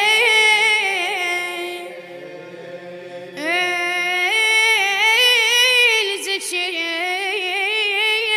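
A boy's solo voice chanting a mournful Iraqi abudhiyya verse a cappella, in long held notes with wavering ornaments. The voice breaks off about two seconds in and resumes strongly a second and a half later.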